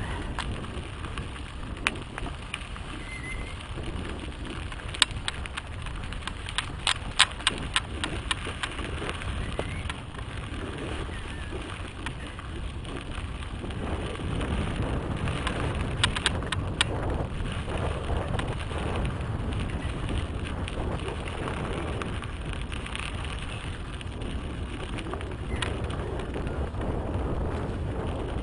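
Mountain bike riding on a dirt trail: a steady low rumble of tyres on dirt, with a burst of sharp clicks and rattles from the bike over bumps about a quarter of the way in and a few more about halfway.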